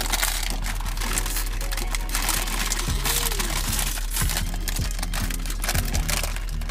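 Plastic-foil snack bags crinkling irregularly as they are handled and opened, over background music.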